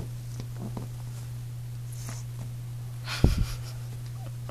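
Chihuahua puppy throwing a tantrum in a wire crate, with one sudden sharp huff and a couple of low thumps about three seconds in.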